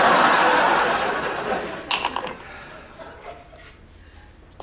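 Studio audience laughing, loudest at the start and dying away over about three seconds.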